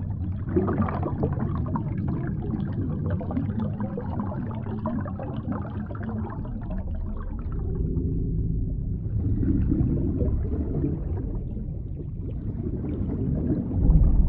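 Water gurgling and sloshing over a steady low rumble.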